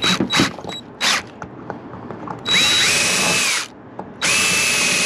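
Electric drill boring a hole for a 1/8-inch pop rivet. It starts with a few short trigger blips, then runs twice, for about a second and then for longer, its motor whine rising as it spins up and holding steady. The first run drops off when the trigger is released.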